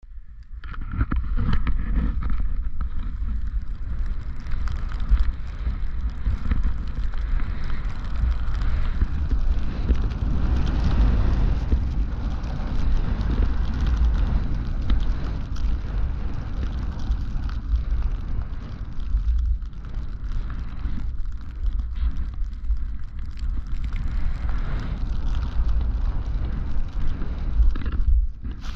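Skis running through deep powder snow, a steady hiss of snow, under heavy wind buffeting on a body-worn camera's microphone from the skier's own speed.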